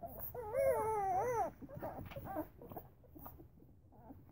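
Eleven-day-old Newfoundland puppies whimpering as they jostle to nurse: one loud, wavering squeal lasting about a second, then shorter, fainter squeaks.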